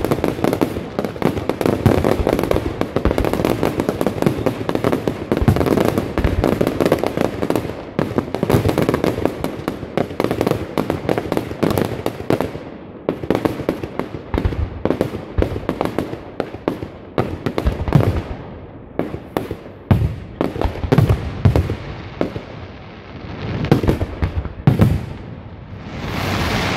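Fireworks display: a dense run of rapid bangs and crackling from aerial shells for the first dozen seconds or so, thinning to separate bursts and crackles, and growing louder again near the end.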